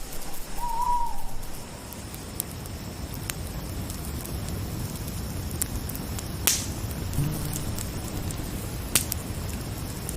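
An owl hooting: one short hoot near the start and a lower hoot about seven seconds in. Underneath runs the steady hiss and crackle of a campfire, with a couple of sharp pops, and a faint steady chirring of crickets.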